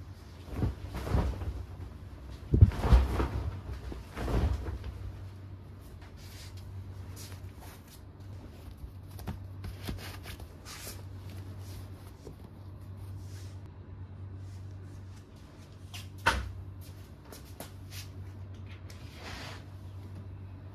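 Knocks and bumps of furniture being handled, like cupboard doors and panels being opened, closed and set down, over a steady low hum. The loudest knocks come about three seconds in, with a single sharp knock later and lighter clicks between.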